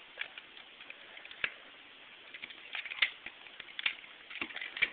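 Plastic Transformers Ratchet action figure being handled, giving scattered light clicks and taps, with a few sharper clicks about a second and a half, three and four seconds in.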